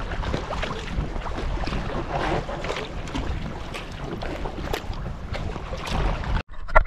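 Wind buffeting the microphone over the splashing and dripping of a double-bladed kayak paddle stroking through choppy water. The sound breaks off near the end and is followed by a brief sharp knock.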